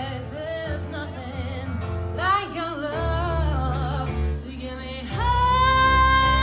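A woman singing live over instrumental backing, her melody sliding between notes, then holding one long, louder note from about five seconds in.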